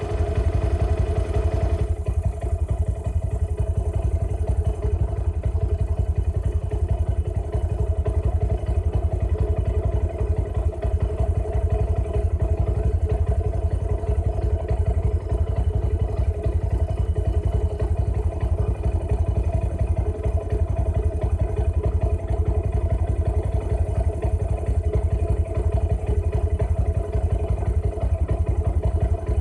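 A motor vehicle's engine running steadily with a heavy low rumble and a steady mid-pitched hum.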